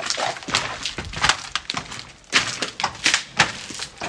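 Footsteps crunching over a debris-strewn floor, irregular crackling steps about two a second.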